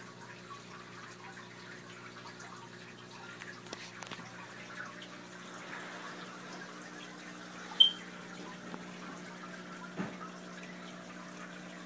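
Aquarium water trickling and bubbling from the tank's filter and air line over a steady low electrical hum of the pump. One sharp, short high click about two-thirds of the way through, and a softer knock a couple of seconds later.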